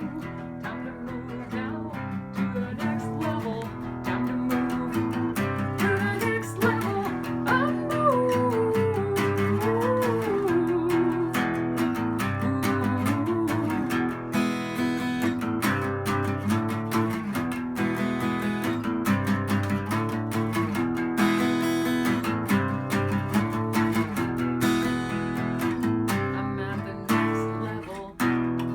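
Acoustic guitar strummed and picked in a steady rhythm, playing an instrumental passage of a song. A wavering, gliding melody line rises over the chords in the middle.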